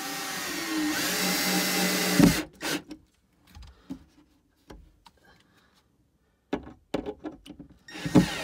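Power drill running into a wood panel, rising in speed and loudness, then stopping sharply about two seconds in. Several knocks and clicks follow, and the drill runs again briefly near the end.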